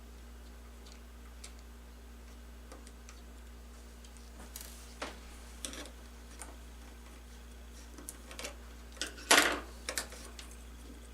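Light clicks and scrapes of small tools and parts being handled while a tablet is taken apart. They are sparse at first and busier in the second half, with the loudest scrape about nine seconds in.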